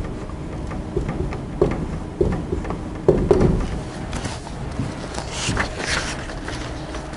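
Dry-erase marker squeaking and tapping on a whiteboard as words are written, in a string of short strokes, then paper rustling in the hands from about four seconds in.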